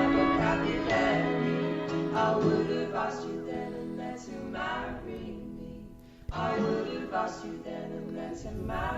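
Music with a choir singing held chords. It fades almost away about six seconds in, then a new phrase begins.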